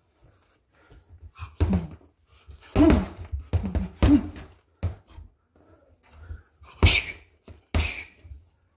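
Boxing gloves striking a hanging heavy bag, about seven punches at irregular spacing, several of them paired with short grunts or sharp exhales from the puncher.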